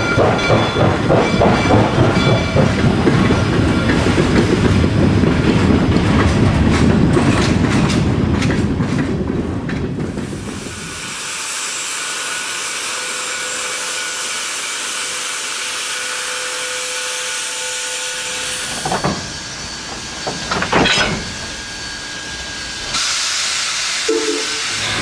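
Steam locomotive sounds: a train running with a fast rhythmic beat for about the first ten seconds, then giving way to a steady hiss of escaping steam. A few sharp clanks come through after that, and a second burst of hiss near the end.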